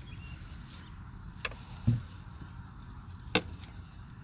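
Three short, sharp knocks from wooden beehive equipment being handled: one about a second and a half in, another just after, and a third at about three and a half seconds. A steady low rumble runs underneath.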